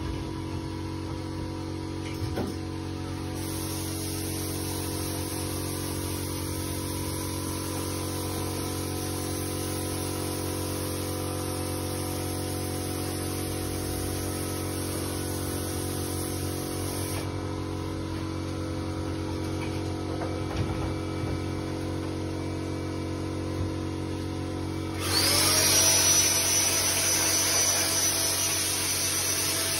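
Steady electrical hum with a high hiss over it for a stretch early on. About 25 seconds in, a handheld cordless power tool's motor spins up with a short rising whine and then runs steadily and louder.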